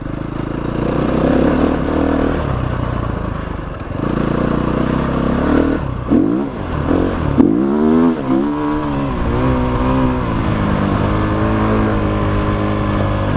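SWM RS500R single-cylinder dirt bike engine running under throttle. About six to nine seconds in, the revs drop and climb again several times, then settle into a steady pull.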